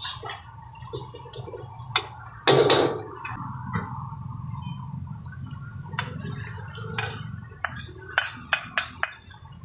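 Steel ladles scraping and clinking against a wok as fried rice is scooped out, then a run of ladle clicks and taps as it is served, over a steady low hum. One louder brief rush of noise about two and a half seconds in.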